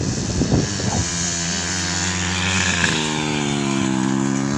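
Racing motorcycle engines at high revs: an uneven, crackling note for about the first second, then a steady high engine note that climbs in pitch about three seconds in and holds.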